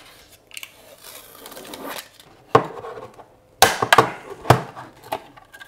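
Handling noise from a hard 3D-printed plastic housing being picked up and turned over on a desk: soft rustling at first, then a few sharp knocks as it bumps the tabletop, the loudest about two-thirds of the way through.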